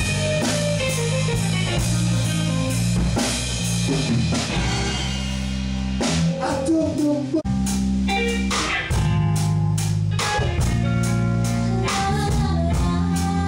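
Live band playing: electric guitar, bass guitar and drum kit together, with a brief break about halfway through before the band comes back in.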